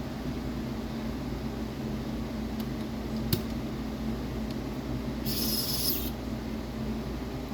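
Steady low room hum like a fan running, with one sharp click about three seconds in and a short hiss a little after five seconds.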